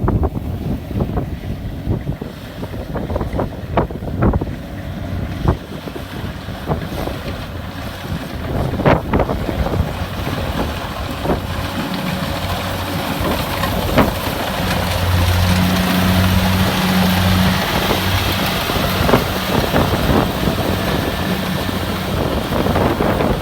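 Kubota DC-70 Plus combine harvester running steadily while harvesting rice, its engine hum growing louder about halfway through, with wind buffeting the microphone.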